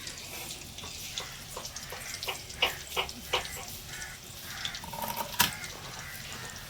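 Fish roe frying in hot oil in a pan: a sizzle with scattered pops and crackles, one sharper pop about five seconds in.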